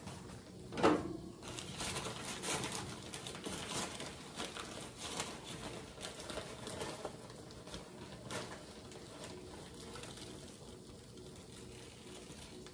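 Rustling of a bag of brown sugar and scattered clicks and knocks of kitchen handling, with one sharp knock about a second in; the handling noises thin out after about nine seconds.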